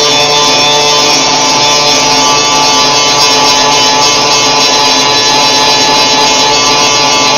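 Power grinder running steadily against sheet-metal car body panel, with a constant motor whine over the grinding noise that carries on without a break.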